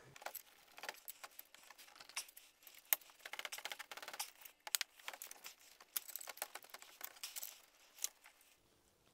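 Irregular metallic clicks and scrapes of a hand tool against a stuck AC compressor's clutch plate and pulley, as the compressor's seized shaft is worked on.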